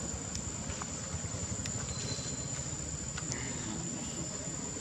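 Steady high-pitched insect buzz, likely crickets, over a constant low rumble, with a few faint clicks.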